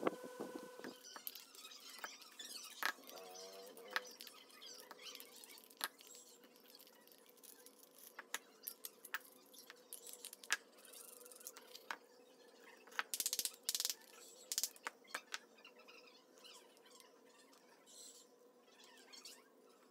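Light clicks and clinks of a small wrench and loose metal nuts and wheel hubs being handled as the wheels are taken off an RC truck axle, scattered through with a quick run of sharper clicks about 13 seconds in. A pitched hum cuts off about a second in, and a faint steady hum stays underneath.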